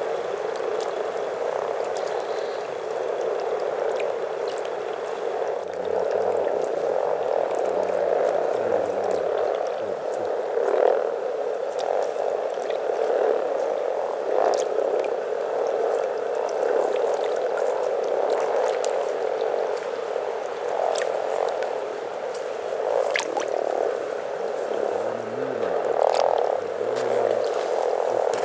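A large chorus of frogs croaking at once in a spring breeding pond: a steady, dense mass of overlapping calls, with no one call standing apart for long.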